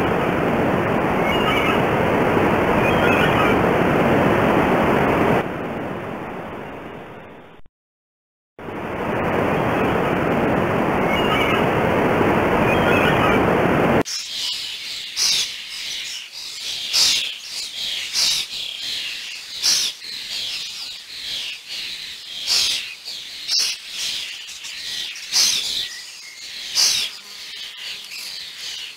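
A steady, loud rushing noise with a few faint chirps over it cuts out about eight seconds in and starts again. From about fourteen seconds in it gives way to a bird's short, high chirping calls, repeated roughly once a second.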